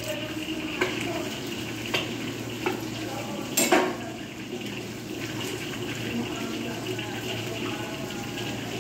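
Kitchen cooking sounds: a steady hiss with a few sharp clinks of cookware, the loudest a little under four seconds in.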